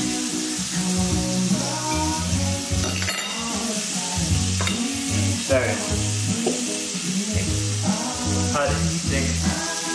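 Food sizzling steadily in a hot frying pan, heard under background music with a stepping bass line.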